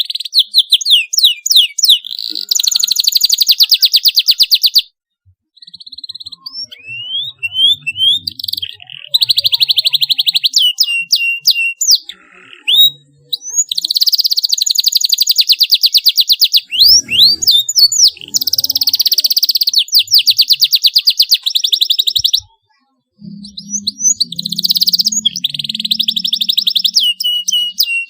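Domestic canary singing: long fast trills and quick rising chirp notes in loud phrases, with two brief pauses, about five seconds in and about 22 seconds in.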